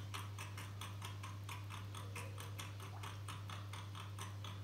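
Amiga 1200 disk drive clicking in a fast, even rhythm, about five clicks a second, over a steady low hum while the computer loads a video.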